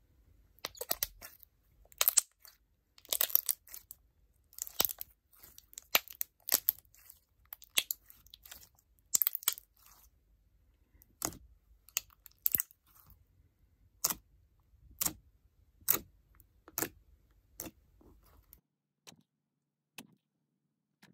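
Clear crunch slime crackling and popping as hands fold, squeeze and stretch it. Dense clusters of sharp, crunchy crackles through the first half give way to single pops about once a second, and it goes nearly quiet in the last few seconds.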